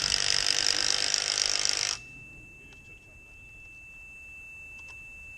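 A loud power tool running and cutting, stopping abruptly about two seconds in. A faint steady high-pitched tone carries on after it.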